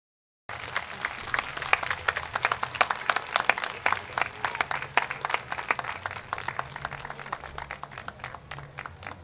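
A large audience clapping: applause starts abruptly about half a second in, dense at first and thinning out toward the end.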